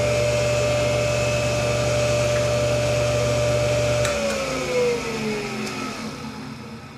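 A tool post grinder's electric motor and belt-driven spindle running with a steady whine and hum. About four seconds in it is switched off with a click: the hum stops and the whine falls in pitch as it winds down.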